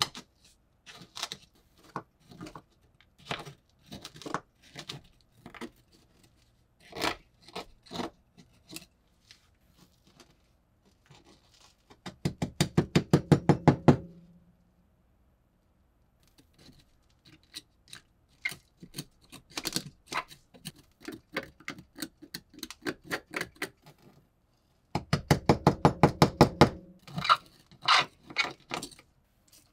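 A steel pick scraping and prying crusty rust and corrosion out of an old iron padlock's body, with scattered scratches and clicks. Twice comes a rapid run of knocks, about ten a second for about two seconds, as the lock is rapped on the wooden workbench to shake loosened corrosion out of it.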